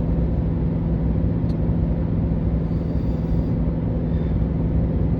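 Chevy 3500 dually pickup's engine running steadily under heavy load as it tows a 14,000 lb fifth-wheel RV up a mountain grade at about 53 mph, a constant low drone over road rumble.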